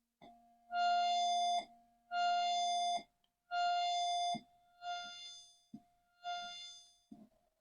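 Commodore 64's SID sound chip playing the dead test ROM's sound test: a row of six short synthesized notes at one pitch. The first ones are held and cut off sharply, the later ones fade away. The repairer thinks one SID filter may be starting to go, but otherwise it sounds pretty good.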